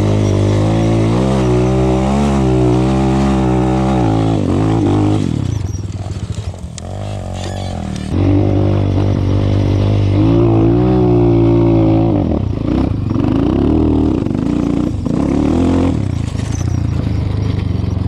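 Enduro motorcycle engine revving hard in second gear on a hill climb, the revs wavering up and down. About five seconds in the revs drop away for a few seconds with a few sharp knocks, then it revs hard again and eases off near the end.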